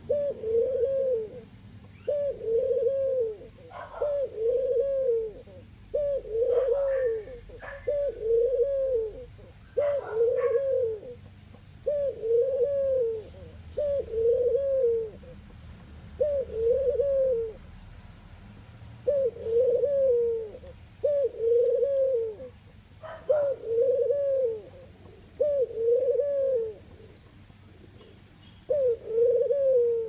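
Ringneck dove cooing over and over: a long series of low, arching coos, each under a second, coming in runs broken by a few longer pauses, with a few brief higher chirps among them.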